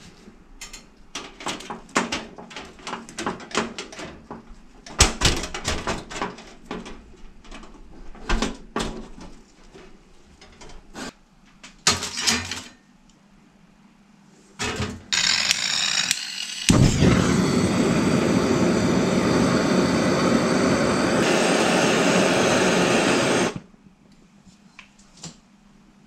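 Sheet metal of a homemade smoker box and foil being handled, a string of clicks and knocks. Then a gas flame comes on with a hiss, burns loudly and steadily for about eight seconds, and cuts off suddenly, setting the block of smoking wood alight.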